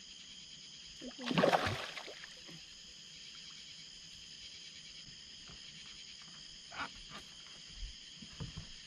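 A steady high-pitched chorus of night insects, with a short louder burst of handling noise about a second in and a few light knocks near the end as fishing gear is worked on the boat.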